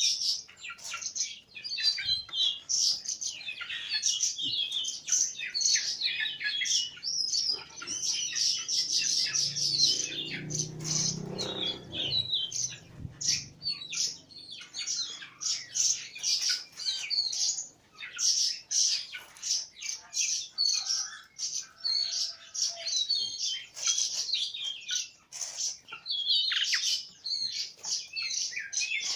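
Small birds chirping rapidly and continuously in dense, high-pitched tweets, with a brief faint low rumble about a third of the way in.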